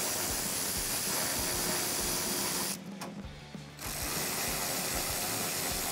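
Cordless electric ratchet with a 7 mm socket running, backing out fender-liner bolts: a steady motor whir for nearly three seconds, a short stop, then a second run.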